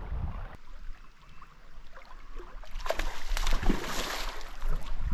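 A hooked salmon thrashing at the surface of a shallow river: a burst of splashing starts about three seconds in and lasts a couple of seconds.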